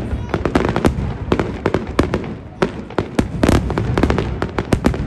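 Aerial fireworks display: an irregular, rapid string of shell bursts and sharp cracks, several a second, with a dense cluster about three and a half seconds in.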